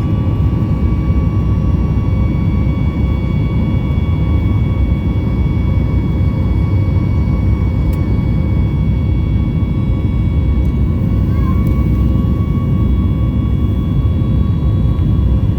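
Jet airliner engines running steadily: a loud, even rumble with several steady whining tones on top.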